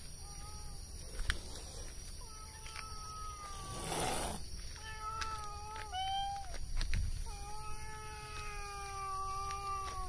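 Cats meowing: a short meow, then a run of long, drawn-out meows, the last one held for about two and a half seconds near the end. A short burst of rustling noise about four seconds in.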